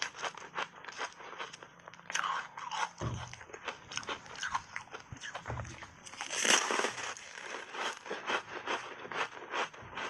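Crunching and chewing of a frozen purple foam ice bar coated in milk powder, eaten close to a lapel microphone. Rapid, crisp crackles run throughout, with a louder bite about six seconds in.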